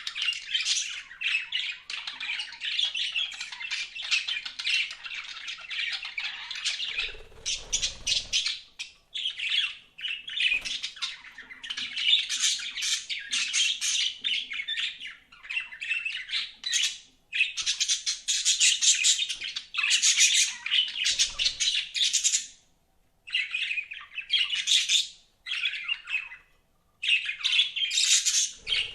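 Budgerigars chattering and chirping, a dense run of rapid warbling calls and squawks with a few brief pauses.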